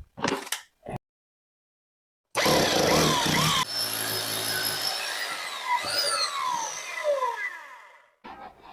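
A power tool starts suddenly, runs loudest for about a second, then carries on more quietly with its pitch sliding downward and fades away. It comes after a few short knocks.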